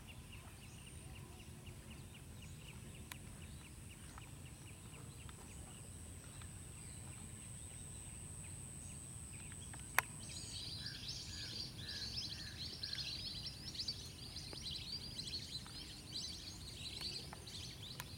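Wetland ambience of birds and insects: a steady high thin whine and faint fast ticking over a low rumble. About ten seconds in there is a single sharp click, after which a chorus of chattering birdcalls sets in, with a short run of five lower notes.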